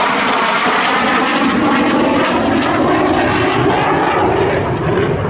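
Saab JAS 39 Gripen fighter jet flying overhead, its Volvo RM12 turbofan engine loud and crackling. A deep rumble builds in the second half.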